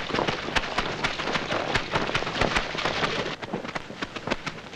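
Rushing water of a rocky stream, a steady hiss with many sharp, irregular clicks and taps over it. The water sound cuts off suddenly near the end while the taps carry on.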